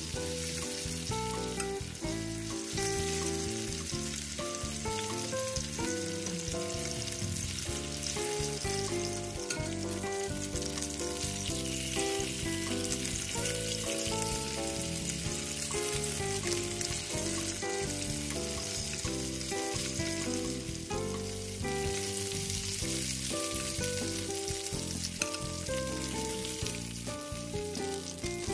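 Pork rib steaks sizzling steadily as they fry in a little olive oil over medium-high heat in a pan, turned now and then with metal tongs. Background music with changing notes plays throughout.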